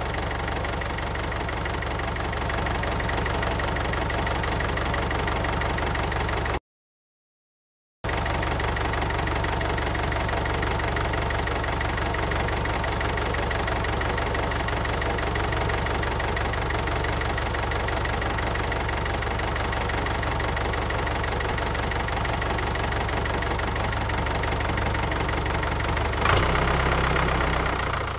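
Small electric gear motor of a home-made model tractor running steadily, a constant mechanical whine and rattle. It cuts out for about a second and a half a little over six seconds in, then runs on, shifting slightly near the end.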